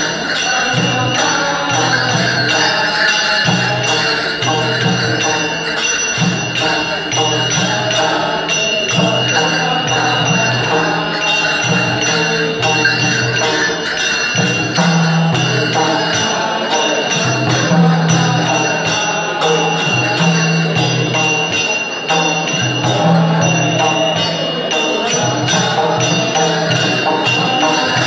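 Newar dapha bhajan music: a group of men chanting over the steady beat of a two-headed barrel drum, with cymbals and bells jingling.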